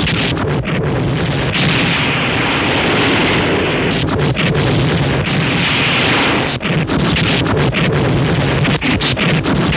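Harsh noise music: a loud, dense wall of distorted static and crackle over a steady low rumble, with rapid clicks throughout. Two swells of harsher hiss come in about one and a half and five seconds in.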